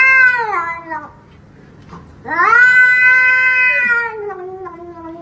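Grey cat yowling at a hand reaching toward it: a long drawn-out call that dies away about a second in, then a second, louder one about two seconds in that slowly falls in pitch and tails off near the end.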